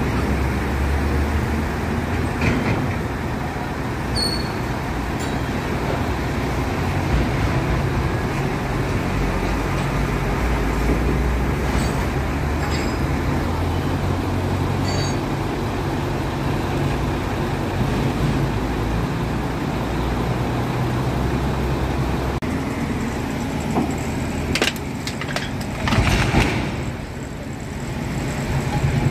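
Heavy diesel engine of a mobile crane running steadily during setup, a low continuous drone, with a few short metallic clanks near the end.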